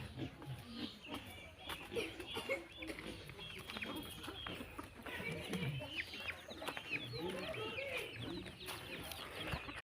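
Chickens clucking and peeping, many short overlapping calls, faint.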